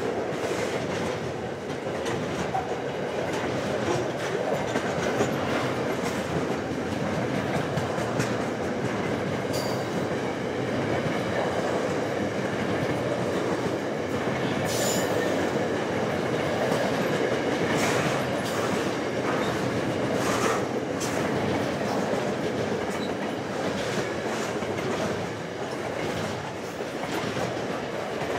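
Freight train of double-stacked container well wagons rolling past, a steady rumble with clickety-clack of wheels over the rail joints. There are occasional brief clanks and wheel squeals.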